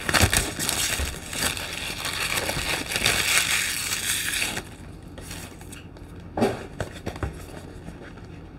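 Clear plastic shrink-wrap crinkling as it is peeled and pulled off a camera box, for about four and a half seconds, then stopping. A couple of soft knocks follow as the box is handled.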